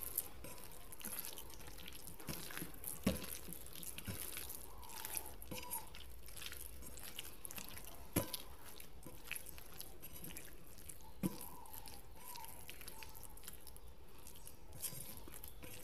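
Hand squishing and kneading raw minced chicken with spices on a plate, mixing the kebab mixture: faint, soft wet squelches with a few sharp clicks.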